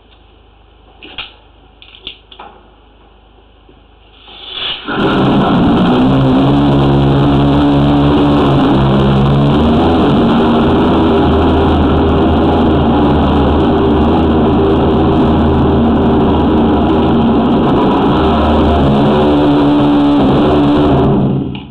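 High-pressure drain jetter running: its engine and pump come on about five seconds in, hold a steady pitch under a broad hiss, and cut off suddenly just before the end.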